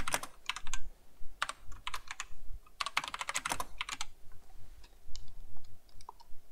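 Typing on a computer keyboard: several short bursts of keystrokes with brief pauses between, as an equation is entered.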